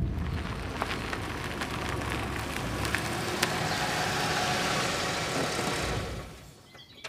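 Small Nissan Micra hatchback running with the hiss and crackle of tyres on a rough gravel surface, dying away about six seconds in as the car comes to a stop.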